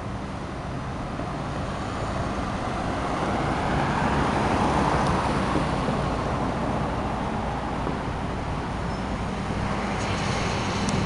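A vehicle passing on a wet road: tyre hiss swells over about three seconds, peaks, then slowly fades, over a steady hiss.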